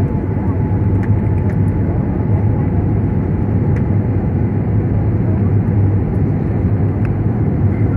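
Steady roar of an airliner's jet engines and rushing air heard inside the passenger cabin during the descent to landing, with a low hum and a faint steady tone.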